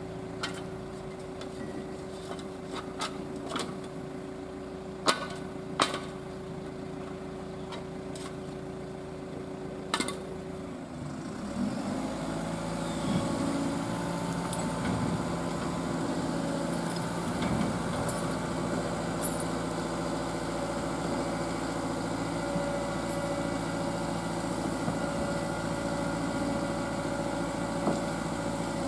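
Diesel engine of a road-rail excavator running at idle, with several sharp metallic knocks. About eleven seconds in, the engine revs up and keeps running louder and steadily.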